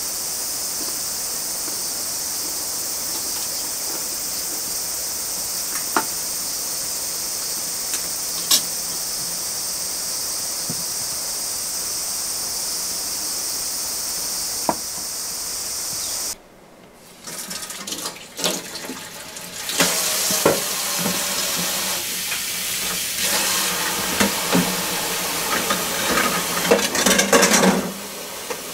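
A steady high hiss with a few light clicks, then, after an abrupt cut about halfway through, a kitchen tap running into a stainless steel sink basin while dishes are washed by hand, with plates and cups clattering.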